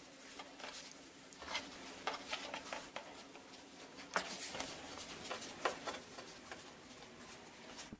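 Hands rolling filled dough into a rope on a wooden board: faint, irregular soft taps and rustles of fingers on dough and board, a couple of them a little sharper.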